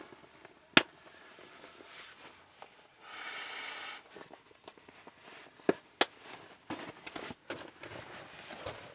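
Someone handling gear at a canvas swag: a sharp click about a second in, a buzzing run of about a second in the middle that fits a zip being drawn, then two more sharp clicks and light knocks and rustles.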